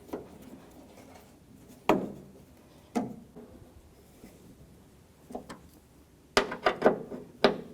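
Scattered sharp clicks and knocks of a T30 Torx driver and latch screws being handled and seated in a car door: single knocks about two and three seconds in, then a quick cluster of several near the end.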